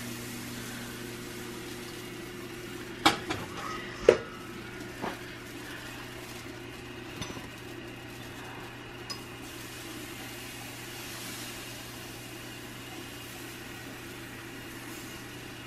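Metal kitchenware clinking a few times, a stainless steel bowl and a metal crepe spreader knocking on hard surfaces, with the two loudest clinks about three and four seconds in and softer ones after. Under it runs a steady low hum.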